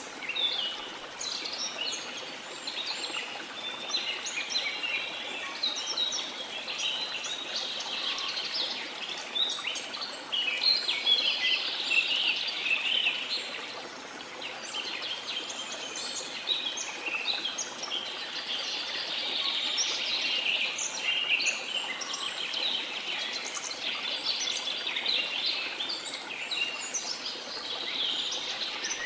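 A chorus of many birds singing and chirping at once, calls overlapping without a break, over a steady rush of falling water.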